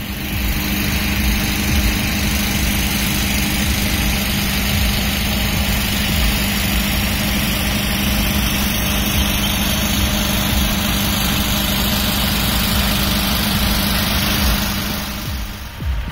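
Fire engine's diesel engine running steadily at idle, an even low drone that dips just before the end.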